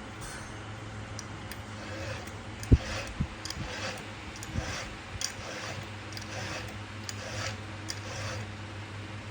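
Repeated rasping strokes of a file sharpening a chainsaw chain, roughly one to two a second, over a low steady hum, with a sharp knock a little under three seconds in.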